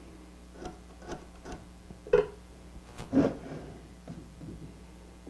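A metal square and a pencil handled against a plywood panel while marking a line: a string of light, separate taps and knocks, the two loudest about two and three seconds in.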